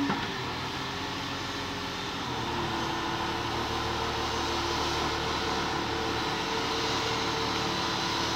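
Komatsu PC200 LC excavator's diesel engine running steadily under load. About two seconds in it gets a little louder and its note shifts as the long arm raises a bucket of mud out of the water.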